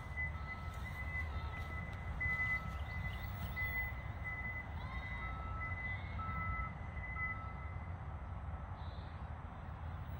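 Wind rumbling on the microphone, with the faint, steady high whine of a small RC plane's motor in flight running through it and fading out near the end.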